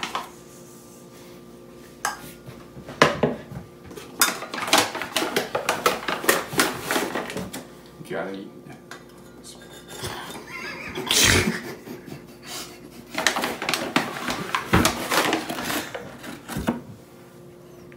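Scattered knocks, clatter and paper rustling as a meat cleaver and a paper bag of flour are handled over a plastic mixing bowl, mixed with laughter.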